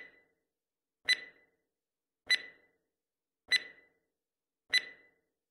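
Quiz countdown timer sound effect: five short ticks, about one every 1.2 seconds, each with a brief ringing tone, counting down the seconds to answer.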